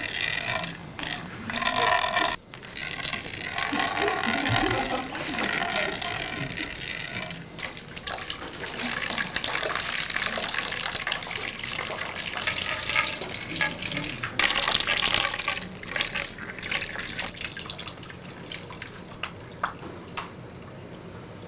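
Water poured from a height into a glass bowl on the floor, a continuous splashing stream that eases off over the last few seconds.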